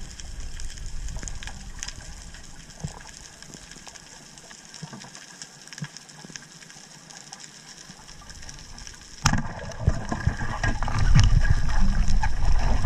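Underwater ambience on a submerged camera: a low watery hiss with scattered faint clicks. About nine seconds in, a sudden sharp knock, followed by much louder churning water noise.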